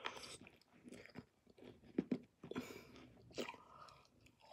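Close-up chewing of a mouthful of SweeTarts candies: wet mouth noises with a few sharper crunches around the middle.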